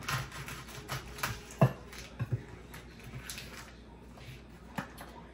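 Knife cutting a package of bacon in half: scattered knocks and clicks, the sharpest about a second and a half in.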